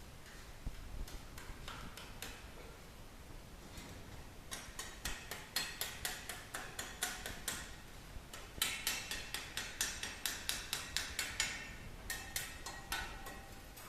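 Rapid runs of light, sharp taps on a hard surface, about four a second, starting about four seconds in and stopping and restarting twice.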